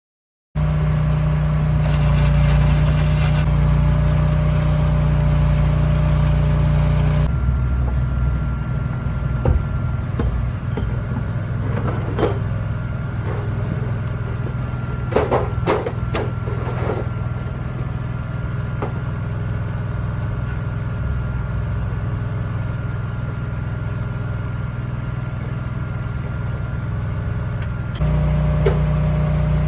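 An engine running steadily at a constant speed, its note shifting about seven seconds in and again near the end, with a few sharp clicks and knocks around the middle.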